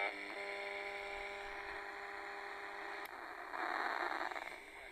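Sony ICF-306 portable radio on the AM band with no station: a steady buzzing tone from its speaker, then a click about three seconds in and a short burst of static as the tuning is moved. The radio is picking up no AM signal.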